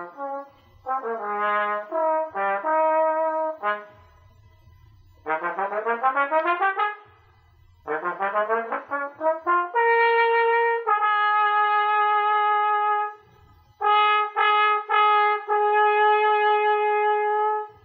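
A trombone playing an unaccompanied melody in phrases with short pauses between them. It has a quick rising run of notes about five seconds in and long held notes toward the end.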